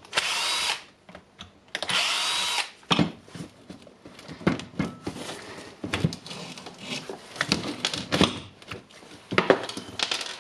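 Electric screwdriver whirring in two short bursts, backing out the screws of a Makita hammer drill's handle housing to get at the carbon brushes. This is followed by small clicks and knocks of screws and plastic housing parts being handled.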